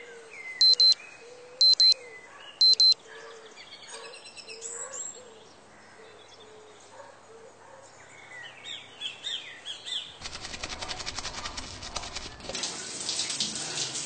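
Smartphone alarm beeping about once a second for the first three seconds, over birds chirping and a low bird call repeating. About ten seconds in, shower water starts running and grows louder toward the end.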